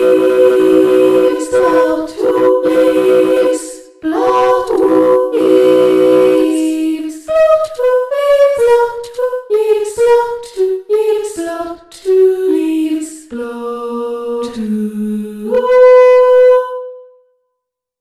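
Realivox Blue sampled female solo voice played from a keyboard: sung vowel notes held as chords of several pitches for about six seconds, then a single legato melody line stepping up and down, ending on a long held note.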